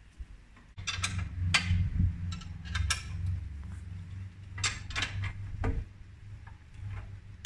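Metal tool clinks and clanks against the bolts and frame of a steel staircase as its treads are levelled and the bolts tightened, several sharp knocks about a second apart. A low steady hum starts about a second in and runs underneath.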